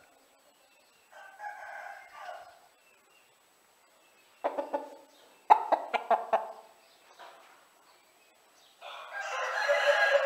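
Aseel rooster crowing twice: a fainter crow about a second in and a louder, longer one near the end. A few sharp knocks come in between.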